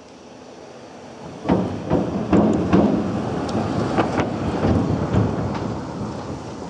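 A vehicle crossing the bridge: a rumble that swells about a second and a half in, with a string of sharp knocks over the next few seconds, then slowly fades.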